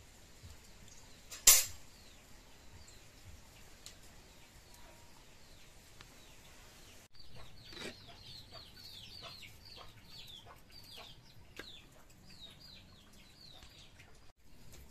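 Small birds chirping in quick series of short, high, falling calls, louder from about halfway, with a single sharp knock about one and a half seconds in.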